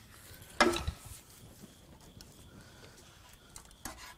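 A wooden block knocking and scraping against the crushed steel oil pan of a VQ35HR engine as it is worked loose and pulled out. There is one louder knock just over half a second in and a few light clicks near the end.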